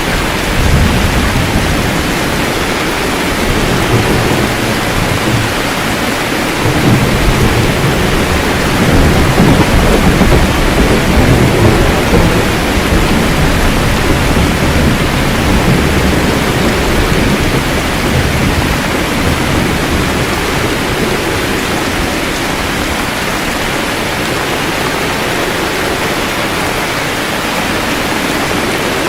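Steady rain with a low, rolling thunder rumble that swells through the first half and fades away after the middle.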